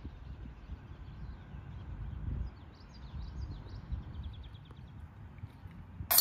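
Outdoor ambience: an uneven low rumble of wind on the microphone with birds chirping in short bursts. It ends in a sudden loud clatter.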